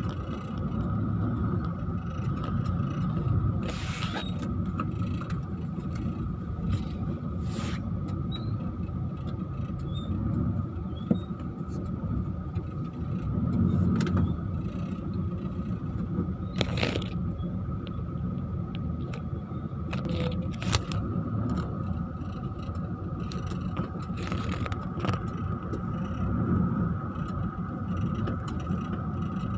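Inside a vehicle driving over a rough, unpaved seashore trail: a steady low rumble of engine and tyres with a constant high whine, broken now and then by short knocks and rattles as it goes over bumps.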